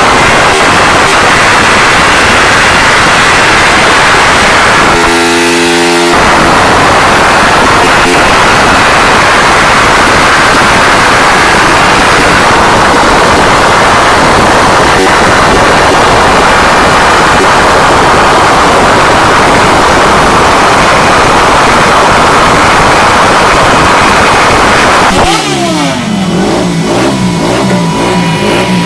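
Honda XR 250 Tornado single-cylinder motorcycle engine run hard on a dynamometer, very loud and steady at high revs. About five seconds in the revs dip briefly, and near the end the revs fall away as the throttle is closed.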